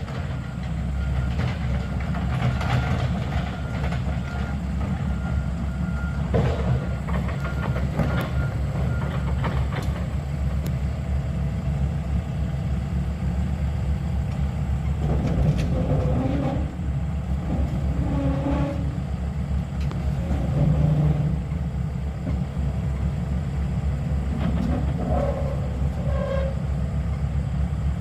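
Heavy earth-moving machinery running steadily with a low engine sound, with scattered metal clanks and scrapes several times as mud is dug out of the pond.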